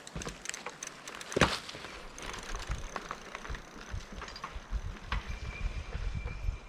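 Fat-tire electric bike ridden over a bumpy trail: the bike rattles and clicks, with one loud knock about a second and a half in. A low rumble of tyres and wind builds from about halfway, and a faint steady high whine joins it near the end.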